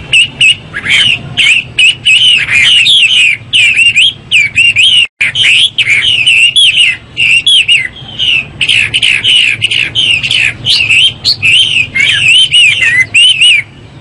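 Chinese hwamei singing a rapid, continuous stream of varied whistled phrases, with a momentary break about five seconds in. The song stops just before the end.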